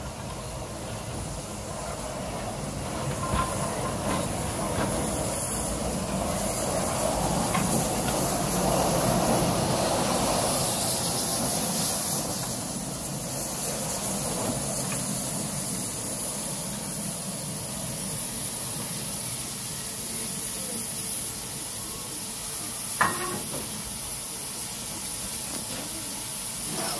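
Small steam saddle-tank locomotive moving slowly, with steady steam hissing that grows loudest a few seconds in as it comes close. A single sharp knock near the end.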